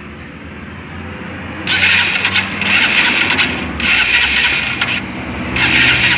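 Honda CG 150 Fan's single-cylinder four-stroke engine, freshly reassembled, starting up and then revved in three bursts. The owner hears it as free of the piston-skirt-slap knock it had before.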